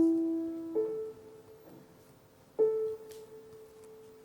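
Slow, sparse piano music. A note sounds right at the start, another about a second in, and a third near three seconds, each left to ring and fade.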